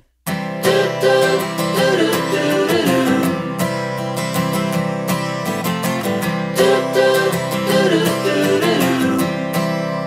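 Background music: a song with strummed acoustic guitar and a moving melody line. It begins abruptly just after a moment's silence at the start.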